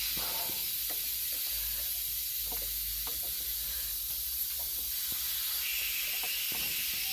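Air compressor running: a steady hiss with a low hum underneath, and a few faint clicks.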